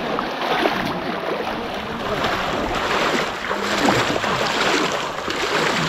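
Muddy water sloshing and splashing as several people wade waist-deep through it, hauling a fishing net, with faint voices in the background.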